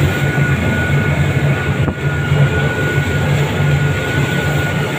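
Twin 300 hp outboard motors running at high speed, a steady pulsing drone under the rush of wind and water.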